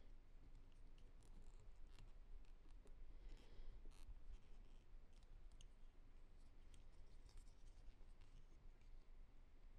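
Faint scattered clicks and light scratching of small plastic toys being handled; otherwise near silence.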